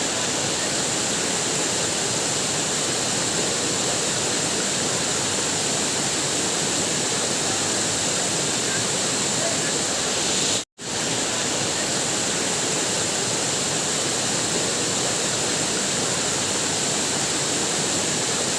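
Waterfall: steady rushing and splashing water, broken once, about ten and a half seconds in, by a split-second gap of silence.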